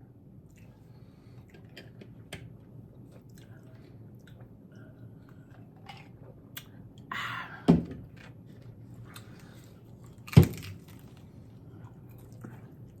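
Close-miked chewing and crunching of crispy tostadas, with many small crackling clicks and two loud, sharp sounds, about seven and a half and ten and a half seconds in.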